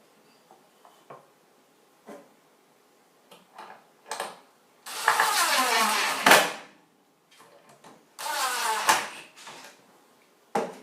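Electric screw gun driving screws into pallet wood in two runs, the first about two seconds long with the motor's pitch falling as the screw bites, the second about a second long. Light clicks and knocks of the wood and screws being handled come between them.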